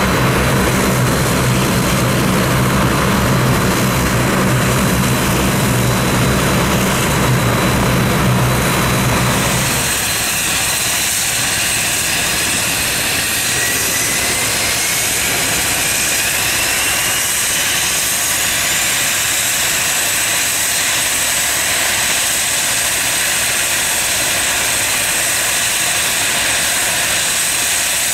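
Turboprop aircraft engines running. A strong low propeller drone lasts for about the first ten seconds, then drops away, and a high whine climbs in pitch and then holds steady.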